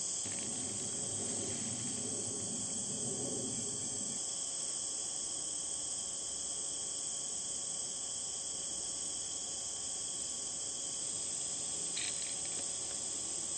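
Steady, high-pitched chorus of crickets trilling. A low rumble underneath for the first four seconds cuts off abruptly.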